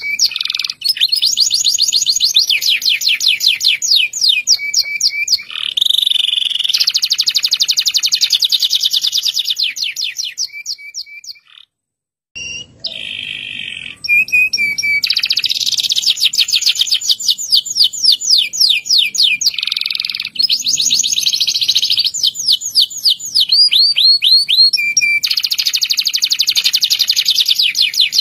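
Local-bred canary singing in long rolling trills, runs of fast repeated notes strung one after another, with a brief break about twelve seconds in.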